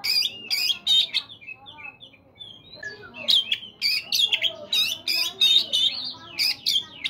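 Oriental magpie-robin (kacer) singing a varied song of loud, sharp whistled and rasping notes. It drops to softer twittering about one to three seconds in, then returns to a fast run of loud notes.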